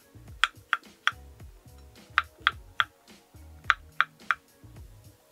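Chef's knife slicing fresh shiitake mushrooms on a wooden cutting board: sharp knocks of the blade on the board in three quick groups of three, with soft background music under them.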